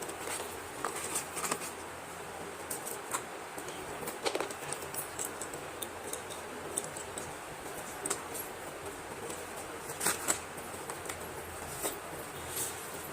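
Parcel packaging being handled and opened by hand: scattered small crinkles, clicks and snips over a steady background hiss, with a few sharper clicks about a second and a half, four seconds and ten seconds in.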